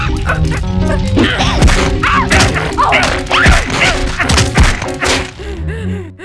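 Cartoon violence sound effects: a quick run of thuds, whacks and crashes over background music, mixed with a character's strained cries. The music and impacts drop away near the end.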